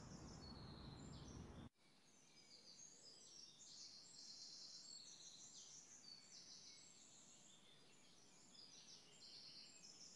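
Faint birds chirping: many short high chirps scattered throughout, over near silence, with a low hiss that cuts off about two seconds in.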